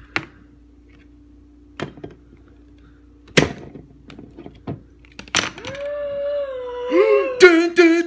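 Sharp clicks and knocks of a plastic TV remote levered against the crown cap of a glass beer bottle to pry it off, two of them much louder snaps. Near the end a man's voice holds a note, then breaks into short laughing bursts.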